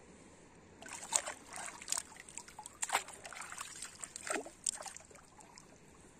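Shallow seawater splashing and sloshing as it is stirred by hand and gear. An irregular run of small splashes starts about a second in and dies down about five seconds in.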